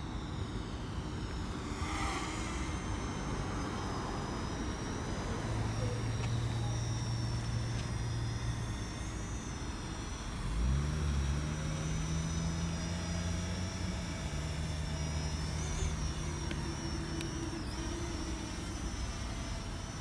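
Parrot Anafi quadcopter flying low, its motors and propellers giving a steady high-pitched whine that wavers slightly in pitch. Lower hums come and go, one starting abruptly about halfway through.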